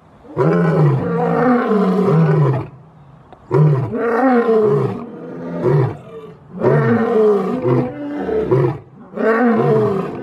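Lion roaring: a run of short, deep calls, each rising and falling in pitch, coming in groups of three or four with brief pauses between the groups.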